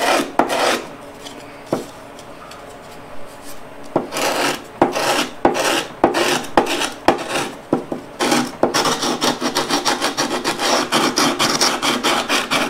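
Edge of a thin luan plywood throat plate being hand-sanded back and forth on a sheet of sandpaper, a dry scratchy rasp, to ease a fit that is still a little snug. After the first strokes there is a lull of about two seconds; the strokes then come unevenly before settling into quick, even strokes of about three a second over the last four seconds.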